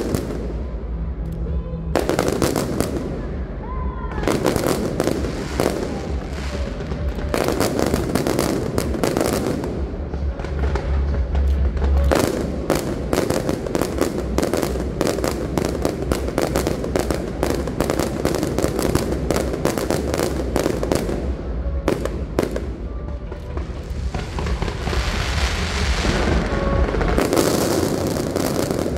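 Fireworks display: aerial shells bursting one after another, the bangs coming thick and fast in a barrage through the middle of the stretch, with crackling between them.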